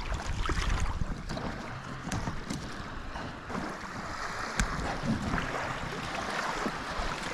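Small waves washing on the shore and wind buffeting the microphone, with a few light knocks, the sharpest a little past halfway.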